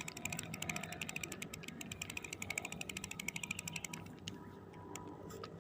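Spinning fishing reel being cranked, a fast even run of ratchet-like clicks that stops about four seconds in.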